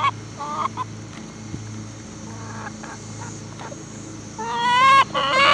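Backyard hens clucking with short calls as they peck flaxseed from a hand. About four and a half seconds in, one hen gives a louder, longer run of complaining calls.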